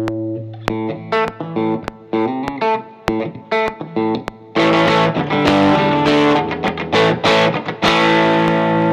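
Electric guitar played straight into the amp with no effects. It starts with picked single notes and short choppy phrases, then from about four and a half seconds in plays louder ringing chords and ends on a held chord.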